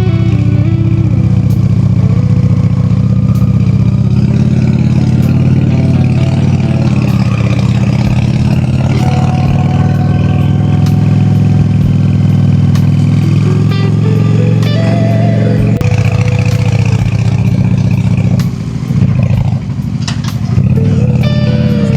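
Honda Shadow cruiser's V-twin engine running under way at steady revs. Partway through the revs rise in pitch and then drop suddenly; a little later the sound briefly eases off and falters before picking up and running steadily again.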